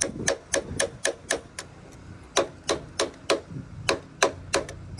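Hammer blows on metal at about four strikes a second, each with a short ring, with a brief pause about two seconds in.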